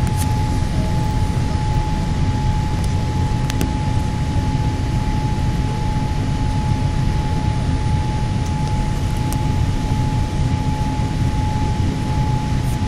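Boeing 787 Dreamliner cabin noise in flight: a steady, loud rush of airflow and engine drone, with a steady high hum running through it.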